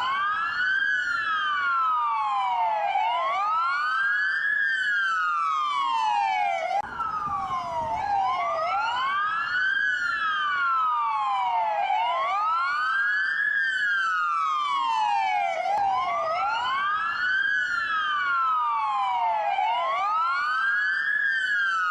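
Police car dual wail siren: two siren tones each slowly rising and falling in pitch, offset so that their sweeps cross, repeating about every four seconds.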